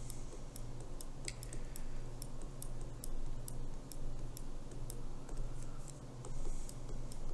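Stylus tip tapping and stroking on a tablet's glass screen: irregular light clicks, several a second, over a steady low hum.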